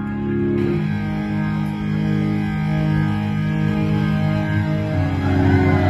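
Music with sustained guitar chords ringing over a low, steady bass tone; the chord changes about a second in and again near the end.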